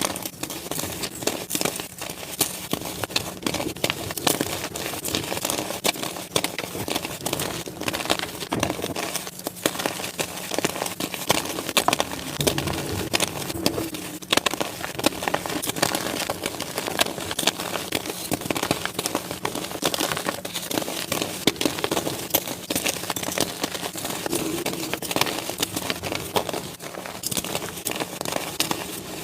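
Blocks of gym chalk crushed and crumbled by hand, a dense run of crunching and crackling with many small sharp snaps as the chalk breaks and powders.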